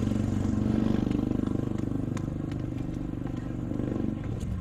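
A vehicle engine idling: a steady low hum that drops off a little near the end, with a few faint clicks over it.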